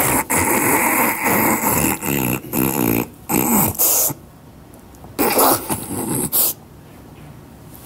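A man's exaggerated mock sobbing: loud wailing and gasping cries for about four seconds, a short pause, then another loud sob.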